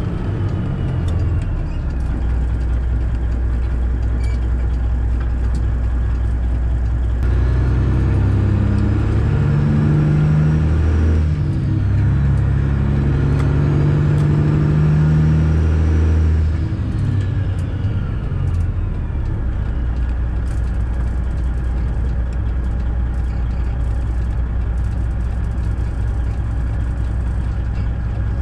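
Diesel engine of a Freightliner Classic XL semi truck running steadily on the road. From about seven seconds in it pulls harder and louder, dips briefly around eleven seconds, pulls again, then eases back to a steady drone at about sixteen seconds.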